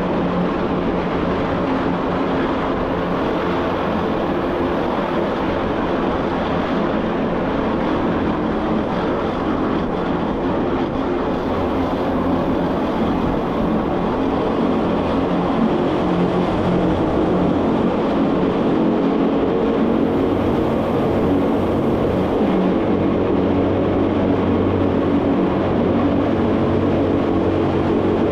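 Electric rack-railway train of the Rochers-de-Naye cogwheel line running steadily downhill: a continuous running noise with a hum of several steady tones from the drive and cog gearing. It grows a little louder about halfway through as the train enters a stone tunnel.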